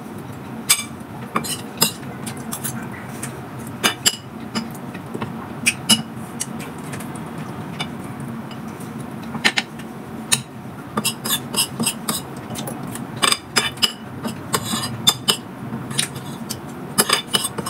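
Metal spoon clinking and scraping against a ceramic bowl while eating, in irregular sharp clicks that come thicker in bunches after the middle and near the end, over a low steady hum.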